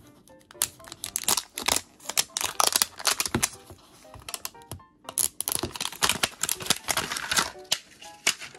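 Plastic film wrapping on a Miniverse capsule crackling in quick, irregular clicks as it is picked at and peeled off, with a short pause about halfway through.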